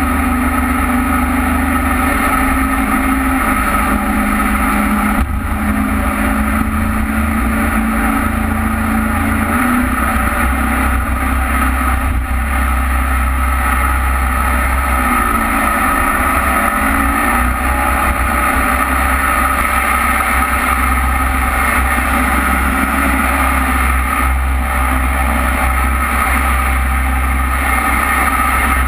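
Jet boat engine running at speed, with water rushing past the hull; the engine note shifts briefly about halfway through.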